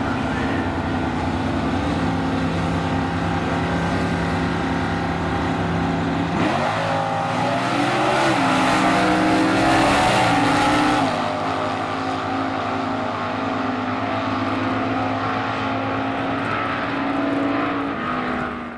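Two drag-race cars, a red COPO Camaro among them, running at the starting line, then launching about six seconds in with the engine pitch rising sharply and stepping through the gears. They are loudest a few seconds after the launch, then settle into a steadier drone as they run down the track.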